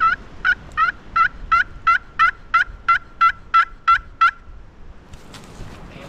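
Turkey yelping: a loud run of about thirteen evenly spaced yelps, roughly three a second, that stops after about four seconds.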